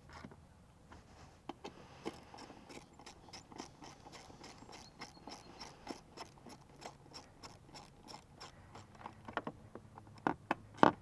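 Hand-tool and parts work on a scooter: a long series of light, uneven clicks and ticks, a few a second, with a few louder clicks near the end.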